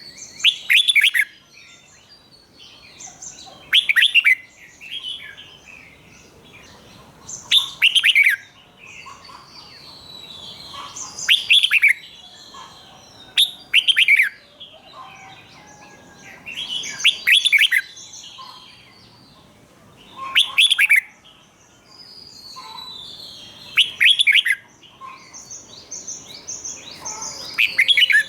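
Red-whiskered bulbul singing loud, quick phrases about every three to four seconds, several of them doubled, with softer chirps in between.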